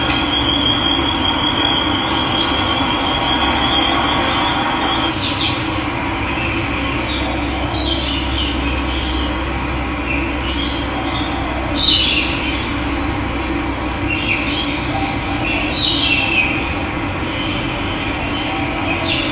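Steady rush of running water, with several short bird calls over it; the loudest call comes about twelve seconds in. A high wavering note runs through the first four seconds.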